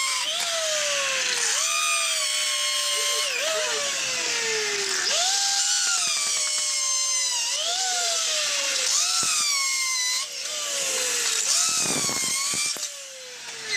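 Handheld electric drill drilling holes to screw in an aluminium sliding-window frame: its motor whine jumps up in pitch with each squeeze of the trigger and sinks as it loads up, over and over about every one and a half seconds. A short harsh grinding stretch comes about twelve seconds in, and the drill stops near the end.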